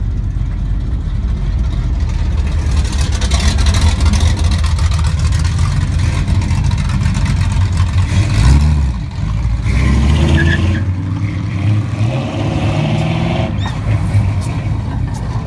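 Classic cars' engines running with a deep exhaust rumble as they drive out of a parking lot, one revving up sharply about eight seconds in and again a little later as another pulls away.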